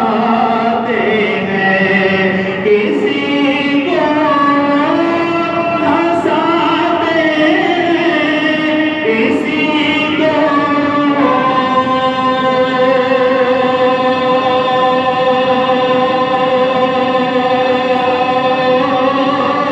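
Naat being sung in a slow, drawn-out melody, the voice gliding between notes and then holding long, steady notes through the second half.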